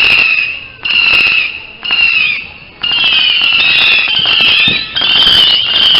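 Whistling fireworks shrieking over a hiss: shrill whistles about a second long, one after another, running together into a near-continuous whistle after about three seconds.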